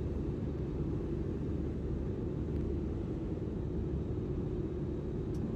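Steady low road and engine rumble of a car cruising on a highway, heard from inside the cabin.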